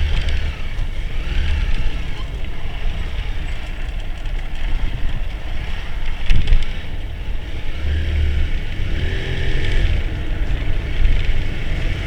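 Motor vehicle travelling along a road: steady engine and road rumble, with one sharp knock about six seconds in.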